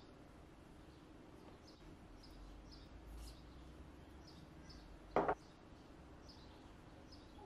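Faint bird chirps repeating every half second or so, with a single short knock about five seconds in.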